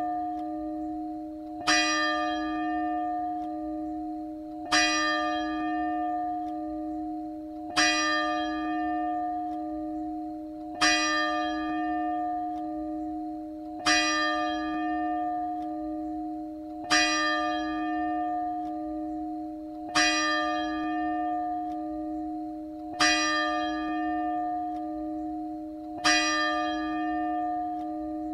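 A single church bell tolling, struck about every three seconds at the same pitch, each stroke ringing on into the next.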